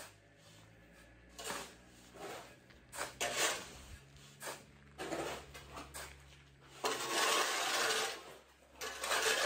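Shovel scraping across a stall floor and scooping and tossing gravel: a string of gritty scrapes and rushes, the longest lasting over a second about seven seconds in.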